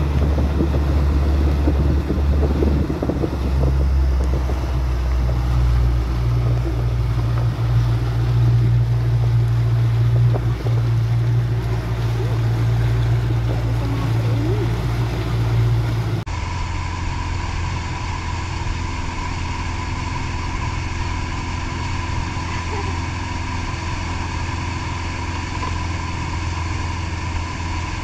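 Mercury outboard motor running steadily at speed while towing, with the wake rushing and wind on the microphone. About halfway through the engine sound changes abruptly to a thinner, steadier tone with a higher whine.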